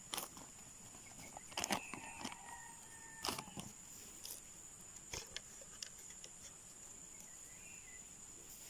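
Black plastic seedling polybags rustling and clicking in a few short bursts as they are handled, with a distant rooster crowing faintly a little after two seconds in.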